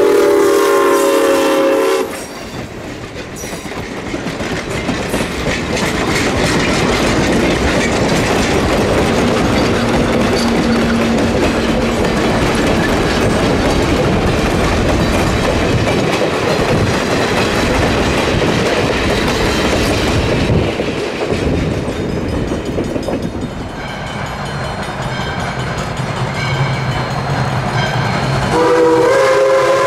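Steam locomotive whistle blowing as No. 3025 passes, cutting off about two seconds in; then the train's passenger coaches rolling by with a steady clickety-clack over the rail joints. After a quieter stretch, a second steam locomotive, No. 40, starts blowing its whistle near the end.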